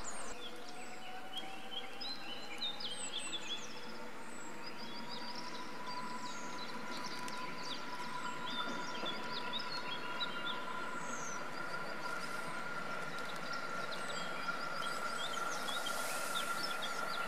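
Modernised EN57 electric multiple unit pulling away. Its drive gives a whine that rises in pitch over the first several seconds and then holds steady, with a second steady tone above it. Birds chirp throughout.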